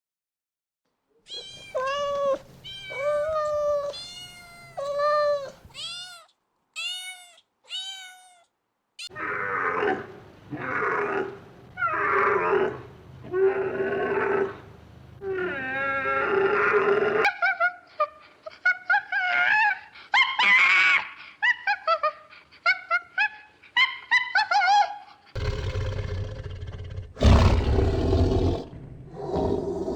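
A run of different animal calls, one kind after another. First comes a series of repeated pitched cries, then a few short calls, then harsher, noisier calls, and near the end deep, heavy calls.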